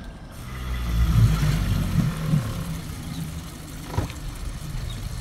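Suzuki 90 four-stroke outboard on a small Boston Whaler running and getting louder about a second in as the boat pulls away. A single sharp knock comes about four seconds in.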